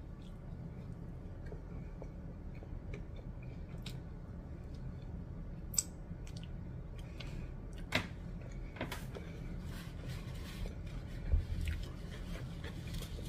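A person chewing burger and fries with the mouth closed, with soft wet mouth sounds and a few sharp clicks, over a steady low hum.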